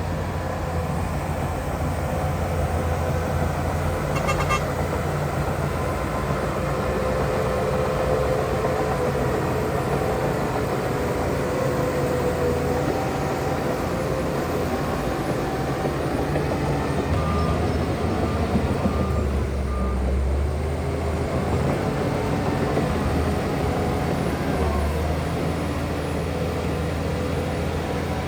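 Heavy diesel earthmoving machinery running steadily, with a short beep about four seconds in and a few short beeps, like a reversing alarm, between about 17 and 19 seconds.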